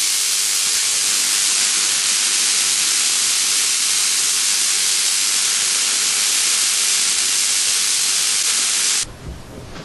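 Steady, even hiss of high-voltage electrical discharge streaming from the points of a Tesla coil. It cuts off abruptly about nine seconds in.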